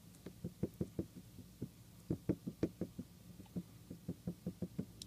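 Cotton swab blotted again and again on a mixer circuit board: a fast, irregular run of faint taps, about five a second, as it lifts flux remover off the pins.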